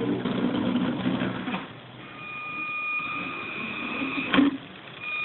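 Kyosho Mini-Z MR-03 radio-controlled car driving on a wooden tabletop. Its small electric motor and gears run with a low drone and tyre noise for about the first second and a half, then give a steady high whine. A single sharp knock comes near the end.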